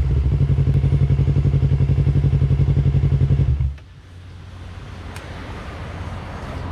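Yamaha YZF-R3's parallel-twin engine running through a Yoshimura R77 slip-on exhaust at a steady, even-pulsing note. It drops away sharply a little over three and a half seconds in, leaving quieter background noise.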